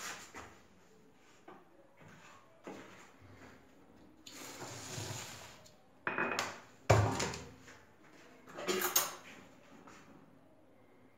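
Dishes and cutlery clattering: scattered knocks and clinks of plates and a spoon, the loudest knock about seven seconds in and another cluster near nine seconds.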